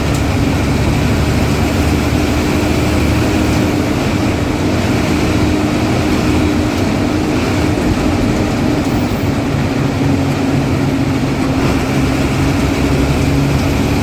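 Ashok Leyland bus diesel engine running steadily under way, with a low hum and a steady droning tone over it.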